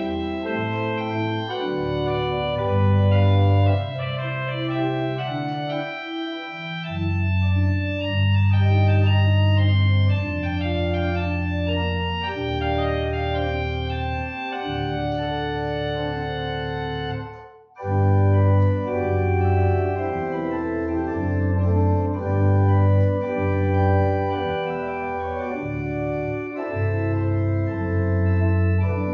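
Church organ playing sustained chords over a deep bass line, with a short break about two-thirds of the way through before it resumes.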